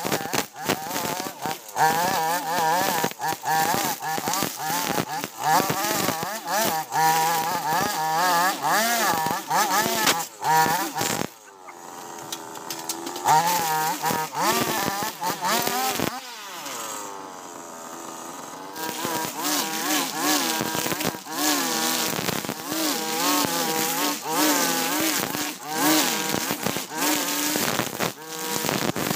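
Husqvarna 542RBS backpack brush cutter's two-stroke engine running at cutting speed, its pitch wavering as the throttle is worked, with a rattle of grass and stems striking the spinning head. About eleven seconds in the engine falls back to a lower, quieter speed for several seconds, then rises to full cutting speed again.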